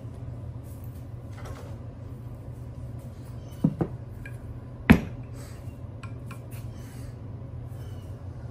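A steel upper control arm and a wooden board being handled and set down on a workbench: two light knocks about three and a half seconds in, then one sharp knock about a second later. A steady low hum runs underneath.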